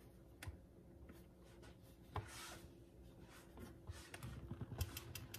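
Faint plastic clicks and scraping of the Bodum Bistro burr grinder's clear bean hopper being twisted and seated on the grinder body by hand.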